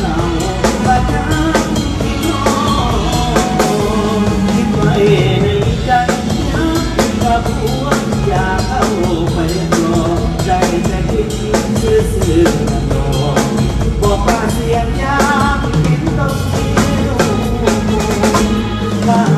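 Live band music with a drum kit keeping a steady beat under keyboard, and a man singing into a microphone at times.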